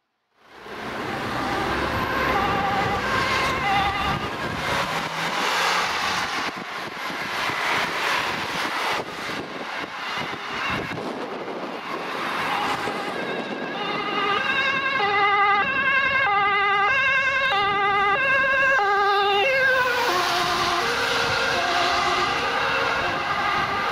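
Ambulance two-tone siren alternating between a high and a low note, over the noise of passing road traffic. It is loudest in the second half, and the two notes drop lower in pitch near the end as the ambulance moves away.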